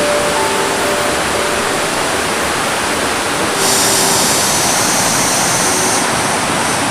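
River water rushing steadily, with a high, even buzz joining about halfway and lasting a couple of seconds.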